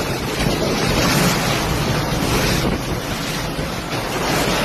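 Strong tornado wind battering the microphone: a loud, steady rushing noise.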